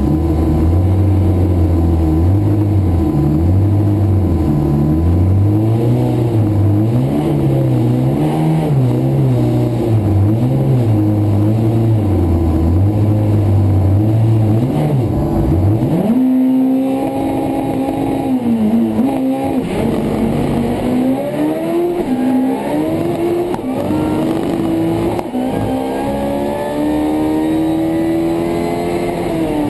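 Drag car's engine heard from inside the cabin, held at wavering revs on the start line. About sixteen seconds in it launches and pulls hard through the gears, its pitch climbing and dropping at each shift, then falls away as the throttle is lifted near the end.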